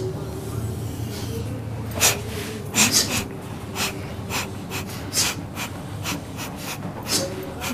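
A person's breath in short, sharp puffs or snorts, about two to three a second, starting about two seconds in, over a steady low hum.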